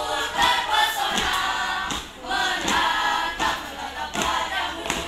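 A group of young voices singing in unison, with a few short knocks mixed in.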